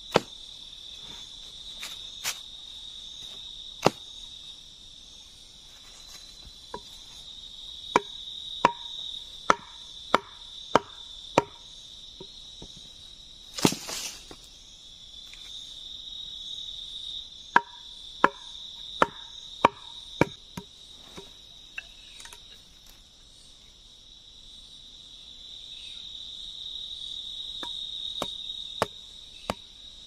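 Wooden stakes being knocked into the ground: sharp wood-on-wood knocks, some single and some in two quick runs of five or six blows, each blow under a second apart. A steady high-pitched insect drone runs underneath, with a brief rustling scrape about halfway through.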